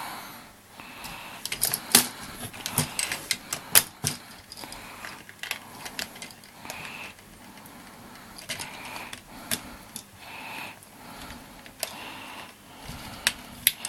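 Hard plastic toy parts clicking and knocking as sword accessories are handled and fitted onto a Legendary Megazord toy, in irregular sharp clicks with short gaps between them.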